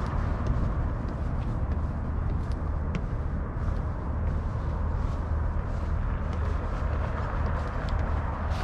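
Steady rumble of distant city road traffic, with a few faint small ticks.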